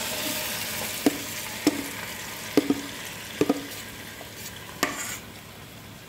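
Hot ghee sizzling in a nonstick pan as thick ground almond paste is spooned into it, the sizzle dying down as the paste covers the ghee. A steel spoon knocks sharply against the rim of a steel bowl about seven times, some in quick pairs, as the paste is scraped out.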